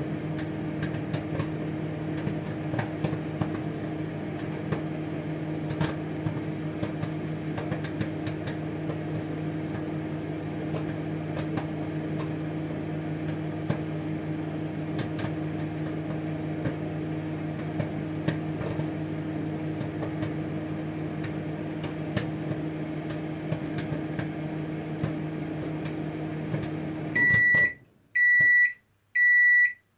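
Samsung microwave oven running with a steady hum while popcorn pops now and then, the pops sparse. The oven stops about 27 seconds in and gives three high beeps about a second apart, signalling the end of the cooking cycle.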